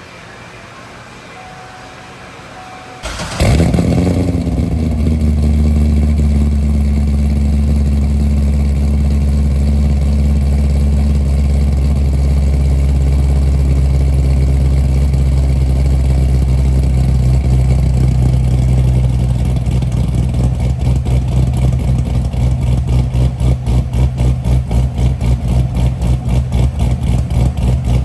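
A Corvette V8 engine starts about three seconds in, catching and running at a fast idle. It then idles steadily, and over the last several seconds the idle turns choppy and loping, with an uneven pulse at about two to three beats a second.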